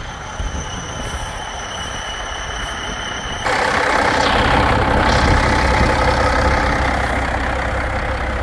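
Freightliner truck tractor's Caterpillar diesel engine idling steadily. About three and a half seconds in it becomes suddenly louder and fuller, heard close at the open engine bay.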